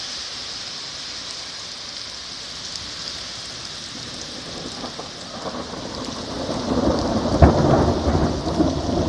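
Heavy rain falling steadily, with a loud rolling rumble of thunder that builds a little past halfway, peaks near the end and then starts to fade.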